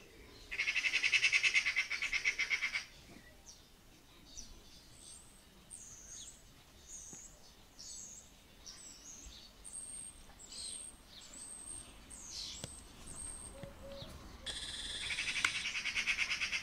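A Eurasian magpie gives its harsh, fast chattering rattle twice, about half a second in and again near the end. This is the magpie's alarm call, used when mobbing a predator such as a cat. In between, small birds chirp briefly, high and faint.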